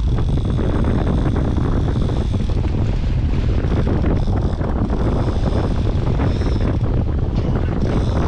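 Wind buffeting the microphone over the steady running of a boat's outboard motors and water rushing past the hull, with the boat under way.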